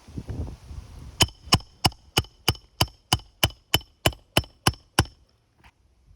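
A hammer striking metal about thirteen times at a steady pace of roughly three blows a second, each blow with a short metallic ring, stopping about five seconds in.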